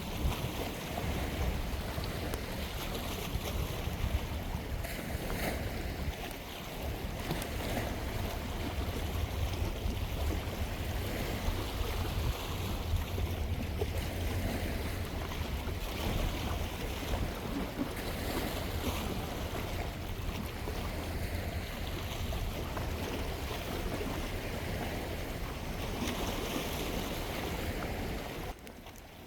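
Wind buffeting the microphone in a heavy, unsteady low rumble over the wash of sea waves, dropping away abruptly near the end.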